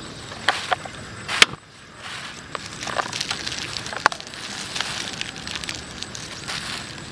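Plastic bag crinkling as flour is worked in it by hand, with several sharp clicks and knocks, the loudest about one and a half seconds in.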